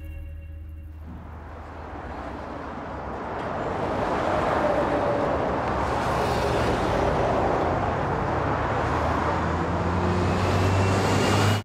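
Motorway traffic: cars and vans rushing past at speed in a steady roar that swells over the first few seconds, holds loud, then cuts off suddenly.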